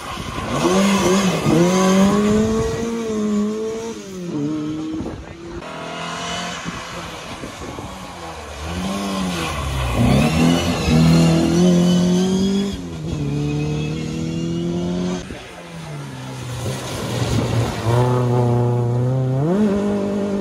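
Rally cars accelerating hard along a wet road, engines climbing in pitch and dropping back at each gear change, several times over, with the hiss of rain and wet tyres underneath.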